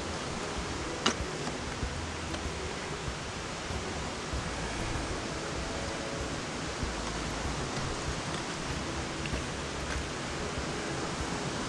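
Steady rush of creek water, an even hiss with no pattern in it. A sharp click sounds about a second in.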